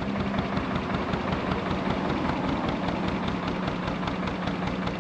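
Narrowboat's engine running steadily under way, an even rapid throb with a constant low hum.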